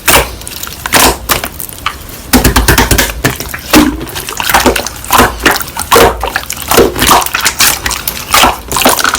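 Slime being squeezed and poked by hand: wet squelching with sharp, irregular pops and clicks, about two or three a second.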